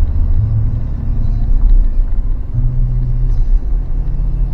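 Low rumble of a road vehicle's engine and running gear heard from inside the moving vehicle, with the engine hum shifting in pitch a few times.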